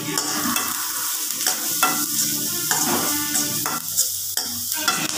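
A metal ladle stirring onions and curry leaves in an aluminium kadai, with repeated scrapes and knocks of the ladle on the pan over a steady sizzle of frying in oil.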